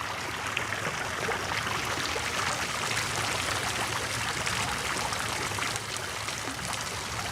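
Water splashing steadily from a fountain, a continuous rushing patter of falling water.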